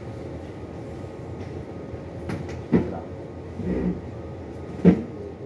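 Steady low rumble of a ship's machinery, with three short knocks of books and papers being handled on a desk. The last knock, near the end, is the loudest.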